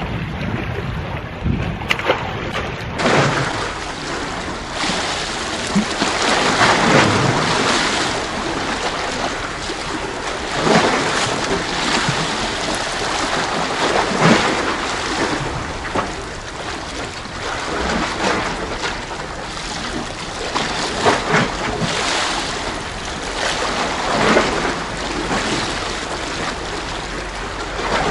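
Sea waves washing in among concrete tetrapod breakwater blocks, swelling and falling back every few seconds, with wind rumbling on the microphone.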